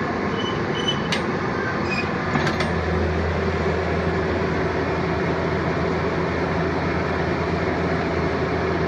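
Caterpillar mini excavator's diesel engine running steadily as the machine takes a scoop of dirt, with a couple of sharp clicks in the first three seconds. About three seconds in, a deeper, steadier engine hum comes in and holds.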